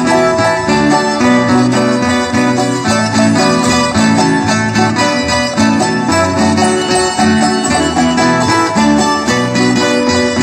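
Fandango dance tune played on a group of small guitar-like plucked string instruments, strummed in a steady, bright rhythm without a break.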